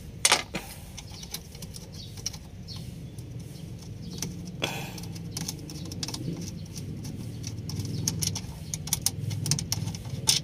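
Scattered light metallic clicks and taps as a hand works a loosened metal clamp fitting, with a sharp click just after the start and a quick run of clicks near the end, over a steady low hum.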